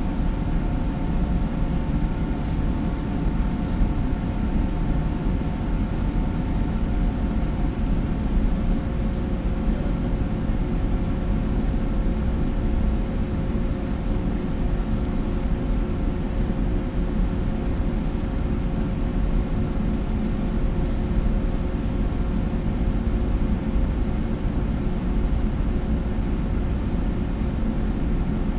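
Steady low drone of a large indoor hall's ventilation, with a hum of several steady tones over a low rumble. Faint high ticks come and go in places.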